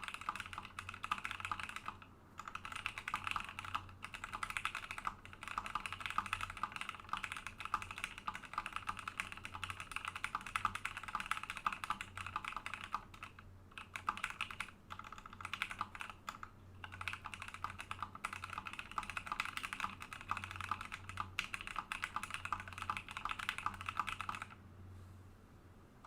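Fast continuous typing on a plateless custom mechanical keyboard with lubed linear switches (Cream housings with Gateron Yellow stems) and thick PBT keycaps, keystrokes clacking with a hollow, slightly pingy tone. The typing breaks off briefly a few times and stops near the end.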